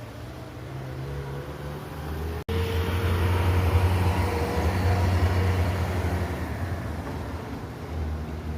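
A motor vehicle's engine running with a steady low hum, cutting out for an instant about two and a half seconds in, then louder before slowly easing off.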